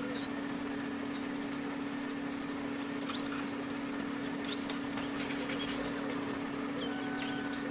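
A steady low hum, with scattered short high chirps, like birds, over it.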